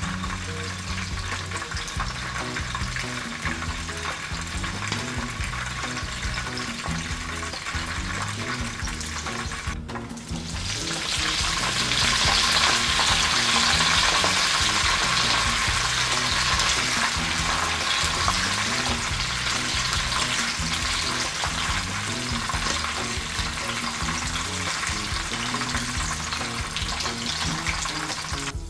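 Batter-coated prawns deep-frying in hot oil: a steady sizzle that drops out briefly about ten seconds in and comes back louder as the prawns are fried a second time.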